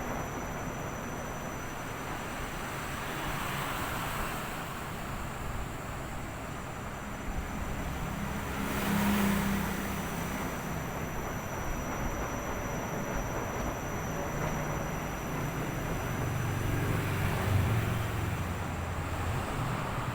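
Washing machine running: a steady rumble and swish of the turning drum, swelling louder about nine seconds in and again near the end.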